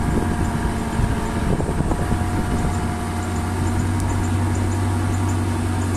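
Small boat's engine running at a steady pitch.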